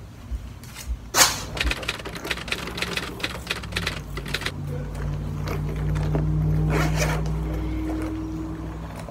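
Clicking and rattling of a purse's metal chain strap as the bag is handled and swung, with one sharp click about a second in. A low steady hum rises under it in the second half.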